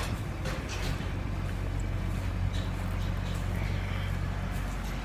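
Tractor diesel engine running steadily with a constant low hum, and a few faint clicks over it.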